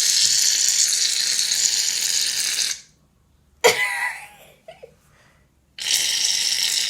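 Aerosol can of shaving foam spraying foam out in two long hisses, each about three seconds, with a short pause between them.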